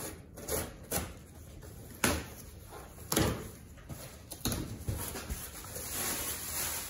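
Knife slicing the tape on a long cardboard box, then the box's cardboard flaps being pulled open with several sharp scrapes and knocks. Near the end, the plastic wrapping inside crinkles as it is handled.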